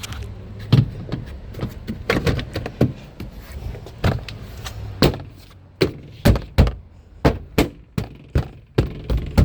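Interior trim panel of a Nissan Rogue rear door being slapped by hand onto the door, a string of sharp thumps and knocks as its plastic clips snap into their holes; the blows come about twice a second in the second half.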